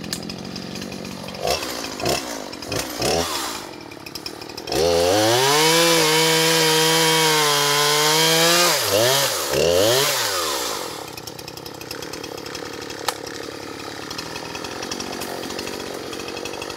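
Poulan Pro two-stroke chainsaw running: uneven and lower for the first few seconds, then revved up hard about five seconds in and held at a steady high pitch for about four seconds. It then dips and rises twice before dropping back to a quieter steady running for the rest.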